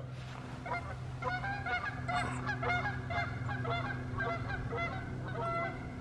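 A flock of geese honking, many short calls overlapping one another from about a second in.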